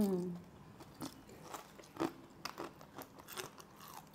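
A person chewing crunchy food close to the microphone, with irregular crisp crunches about a second apart.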